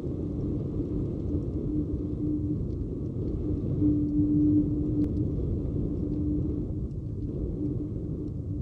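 A deep, steady rumble with a faint humming tone at one pitch that comes and goes, swelling about halfway through.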